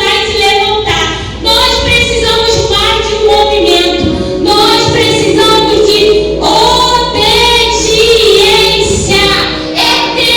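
A young girl singing a song with musical accompaniment, in a series of held, changing notes.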